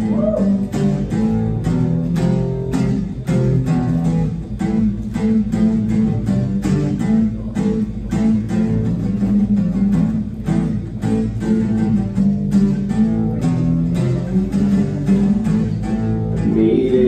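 Acoustic guitar strummed in a steady rhythm of chords: an instrumental passage between sung lines, with the voice coming back in near the end.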